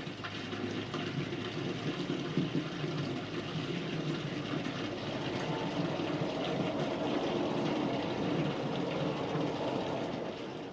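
Aircraft engine noise: a steady rushing rumble that swells a little past the middle and eases near the end.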